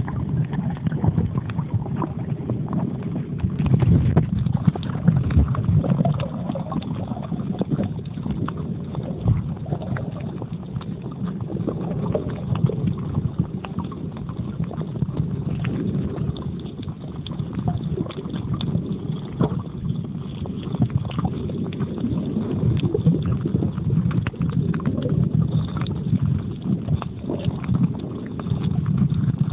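Underwater noise picked up by a phone sealed in a waterproof pouch: a continuous muffled low rumble of moving water with many small irregular clicks and crackles.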